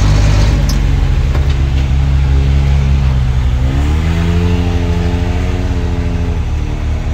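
Maruti Gypsy's engine heard from inside the cabin while driving, its note rising as it accelerates about halfway through, holding, then dropping near the end.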